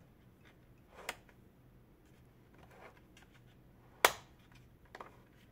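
Mode selector dial of a Parkside Performance PPBH 1600 A1 SDS-Max hammer drill turned by hand, clicking into its detents. A lighter click comes about a second in, a loud sharp snap just after four seconds, and a faint click a moment later.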